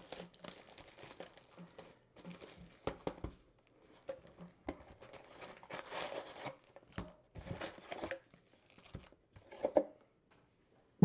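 Plastic shrink wrap crinkling and tearing as it is ripped off a box of trading cards, with the cardboard box handled and opened, and a louder knock near the end.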